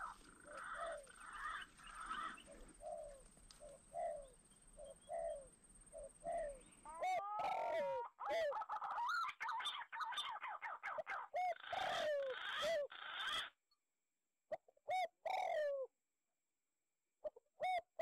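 Green pigeons (punai) calling. At first there is a series of short whistled notes, about one a second. From about seven seconds in, many overlapping, looping fluty whistles sound at once, as from several birds. In the last few seconds the sound cuts off abruptly twice, leaving short bursts of whistles between silences.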